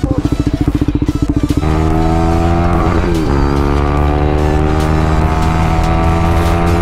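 Motorcycle engine, first running at idle with a rapid, even pulse. About one and a half seconds in it gives way to the steady, slightly rising note of the engine pulling at highway speed, around 120 km/h, with a brief dip in pitch about three seconds in.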